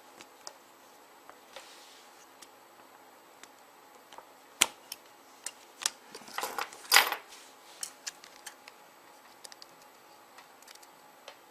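Small plastic clicks and taps of a BlackBerry 9650's back housing being pressed and worked onto the phone, with a sharp click about four and a half seconds in and a short cluster of louder clicks and rubbing around seven seconds in.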